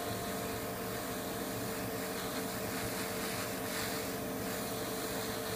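Airbrush spraying a coat of paint: a steady hiss of air and paint mist. Beneath it is the steady hum of the workbench fans.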